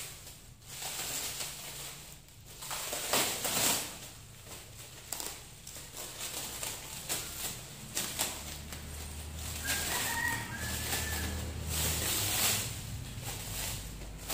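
Clear plastic packaging bag crinkling and rustling in irregular bursts as a fabric laptop sleeve is handled and pulled out of it. A short bird call sounds in the background about ten seconds in.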